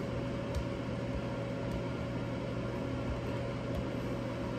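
Steady low machine hum, with a few faint light clicks and scrapes of a spoon spreading sauce over pizza dough.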